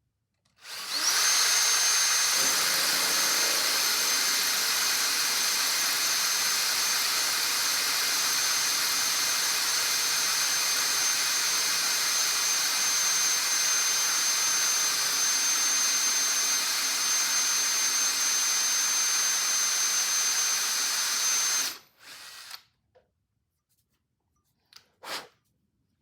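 Electric drill running at a steady speed with a high whine for about twenty seconds, driving a 2 mm bit through a door hinge, then stopping abruptly. Two brief faint knocks follow near the end.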